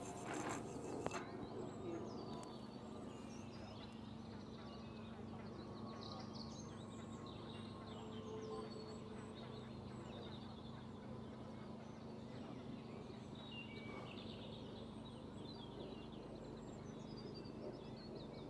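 Wild birds chirping and singing over a steady low hum, with a short burst of clicks in the first second.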